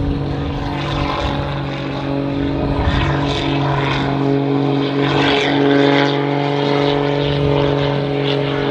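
Propeller engine of an aerobatic display plane running at a steady, high power setting, with its pitch shifting slightly partway through as the plane manoeuvres.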